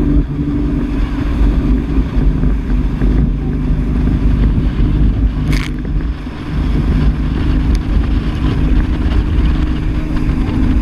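Speedboat engine running steadily at speed, with wind and rushing water over it. A brief hiss about halfway through.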